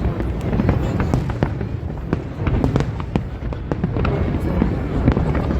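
Fireworks display: a continuous low rumble of shell bursts, with many sharp crackles and pops scattered through it.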